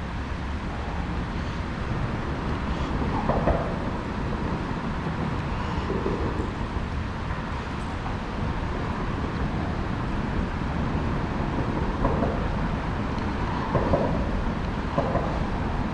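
Water rushing hard over a small concrete spillway: a steady, even rush.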